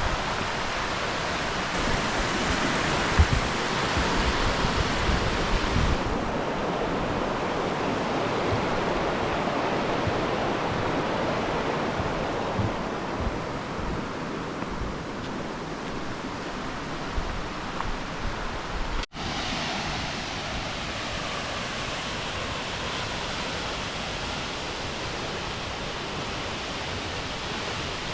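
Steady rush of falling water from Aber Falls waterfall, with wind buffeting the microphone in low thumps over the first few seconds. The sound drops out for an instant about two-thirds of the way through.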